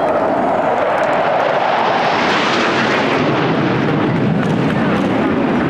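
Military aircraft flying over, its engine noise swelling to a peak about halfway through and then easing off.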